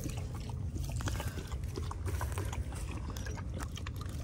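A large livestock guardian dog (Kangal–Akbash cross) lapping water from the chickens' waterer: a run of quick, irregular wet laps and clicks.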